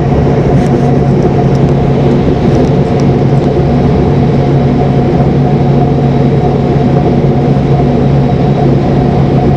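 DB class 425 electric multiple unit running under power: a steady hum from its traction motors and converters, a few held tones over a rumble.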